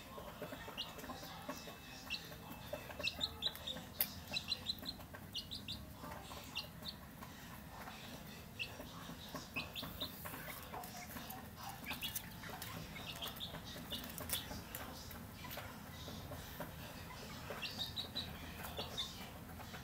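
Young chickens peeping in short, high calls, repeated many times with bunches of quick calls, over a few scattered clicks.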